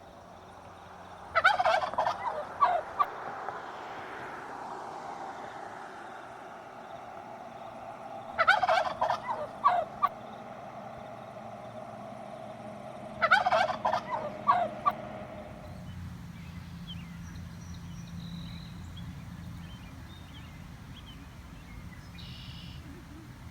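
Turkey gobbling three times, each gobble a rapid rattling call lasting about a second and a half, several seconds apart.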